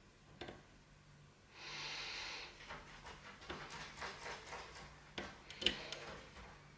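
Small metallic clicks and scrapes of a lock pick tapping and lifting the levers inside a U.S. mail lever padlock, a scattered run of light ticks with one sharper click near the end. A breath out, a short hiss, comes about two seconds in.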